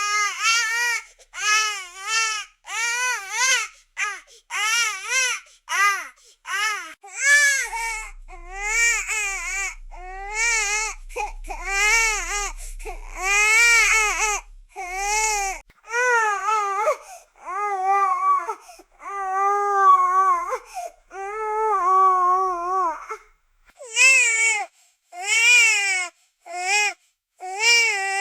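Newborn baby crying: short rhythmic wails about one a second at first, then longer drawn-out cries through the middle, and short wails again near the end.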